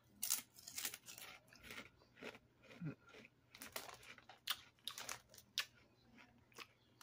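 Lay's potato chip being crunched and chewed, a run of irregular crisp crunches.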